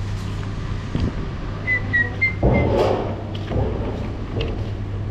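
About four short, high whistle-like chirps about two seconds in, over a steady low hum and some rustling.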